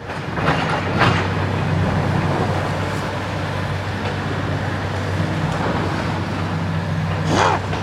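A steady low vehicle-like hum with traffic noise, and a short rising-and-falling yelp near the end.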